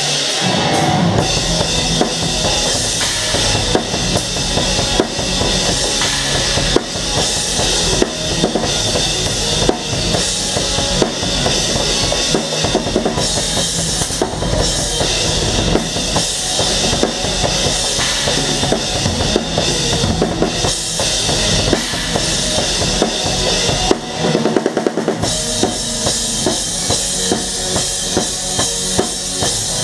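Drum kit played hard with a live band: kick drum, snare and cymbals driving the song over the band's sustained sound. The low end drops out for about a second some six seconds before the end, then the full band comes back in.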